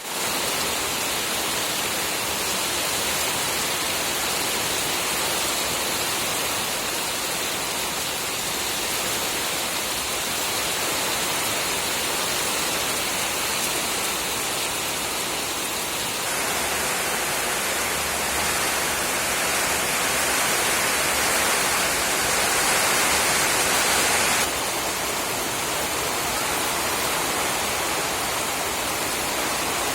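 Steady rain falling. It grows louder and brighter for several seconds past the middle, then drops back suddenly.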